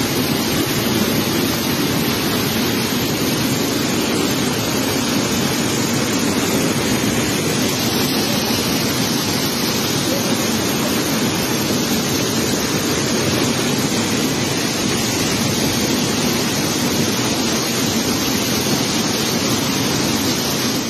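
River in flood: fast, muddy floodwater rushing past in a loud, steady rush of noise.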